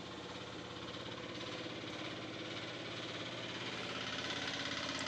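A motor running steadily, a mechanical drone with a fine rapid pulse that grows slightly louder toward the end.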